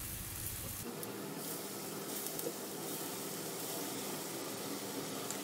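Sweet potato vadas deep-frying in hot oil over a medium flame: a steady sizzle of bubbling oil.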